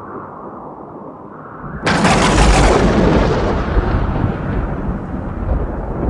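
Sound-effect boom for an animated logo: a muffled rumble, then, about two seconds in, a sudden loud crash with deep rumbling that slowly dies away.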